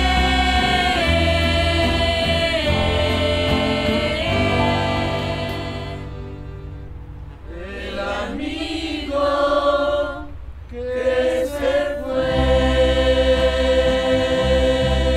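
A group of young voices sings a slow ballad in harmony, backed by acoustic guitars, accordion and electric bass. About six seconds in the accompaniment thins out for a quieter sung passage. The full band returns around twelve seconds in, under a long held note.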